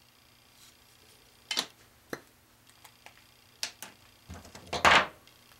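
Small hand tools being handled and set down on a workbench: a few sharp clicks and taps, then a louder clatter near the end.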